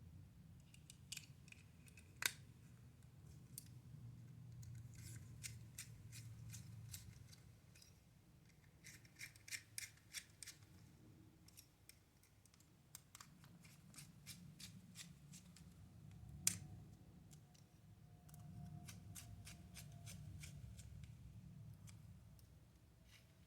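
Faint clicks and ticks of small plastic toy parts being fitted together and screws being driven with a precision Phillips screwdriver. A couple of sharper clicks stand out, one about two seconds in and one a little past the middle.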